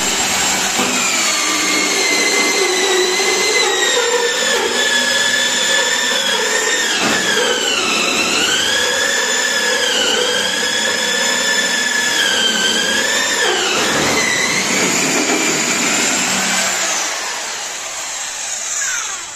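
Corded electric hammer drill running flat out while drilling into a gypsum ceiling, a loud high whine whose pitch dips briefly three times, then slows and fades near the end.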